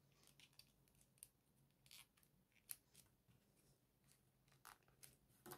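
Near silence: a few faint clicks and rustles of folded paper as small 3D-origami paper modules are handled and pressed into a paper figure, over a faint low hum.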